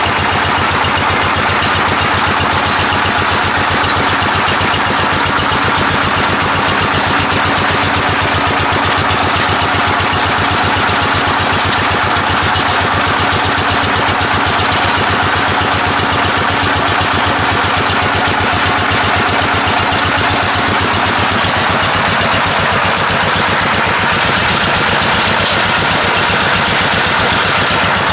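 Diesel engine at a bore well, running steadily with a fast, even firing beat.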